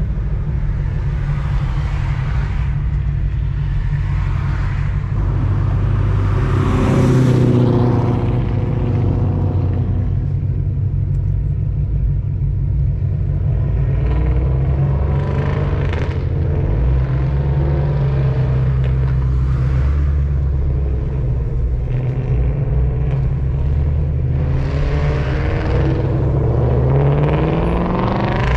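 Ford Mustang engine rumbling steadily, heard from inside the cabin with the window down, as the car creeps along in low gear in slow traffic. The revs rise about seven seconds in and again near the end as it pulls away.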